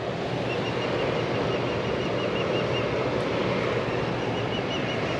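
Steady rush of water flowing out below a dam, with faint high chirps repeating over it.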